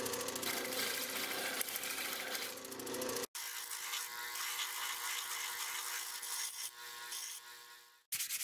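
Bench disc sander running with a steady motor hum and a rubbing hiss as a plastic hatchet grip is held against the sanding disc. The sound breaks off abruptly about three seconds in and starts again at once with a slightly different hum, then breaks off again near the end.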